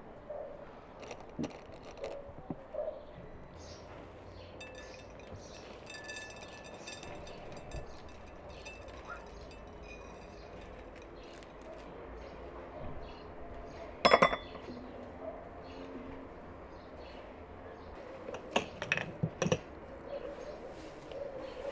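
Glass clinking as stemmed glasses are handled and set down on a table: small scattered taps, one sharp ringing clink about two-thirds of the way through, and a quick run of several clinks near the end.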